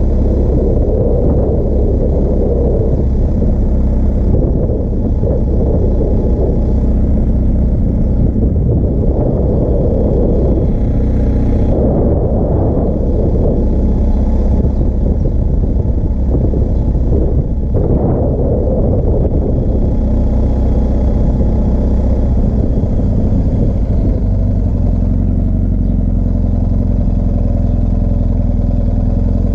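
BMW R1250GS Adventure's boxer-twin engine running steadily as the motorcycle is ridden, a constant low rumble mixed with a rushing noise that swells and eases a few times.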